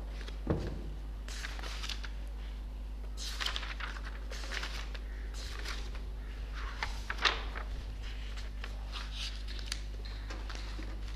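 Paper pages of a textbook being leafed through and turned: an irregular run of rustles and flicks, with a knock about half a second in and a sharper click about seven seconds in, over a steady low hum.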